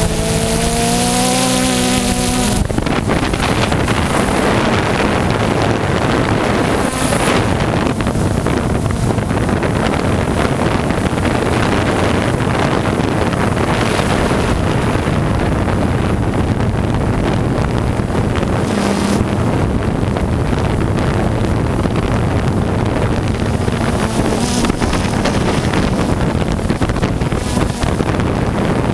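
Onboard sound of a radio-controlled model helicopter in flight: its motor and rotor running steadily under heavy wind noise on the camera's microphone. In the first couple of seconds the motor's pitch wavers up and down, then the even rush of wind and motor takes over.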